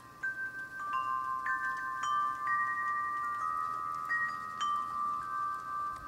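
Wind chimes ringing, struck irregularly, with several long notes sounding together and overlapping.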